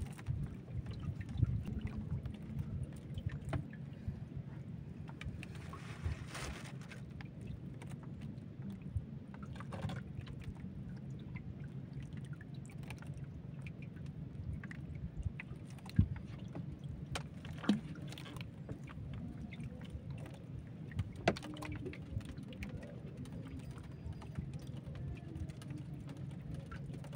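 Low, steady rumble of a small fishing boat sitting on the water, with a few sharp clicks and knocks in the second half as fishing tackle is handled.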